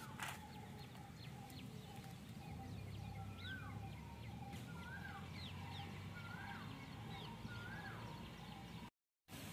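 A bird calling faintly in a repeated series of short notes that rise and then fall in pitch, about one a second. One click comes near the start.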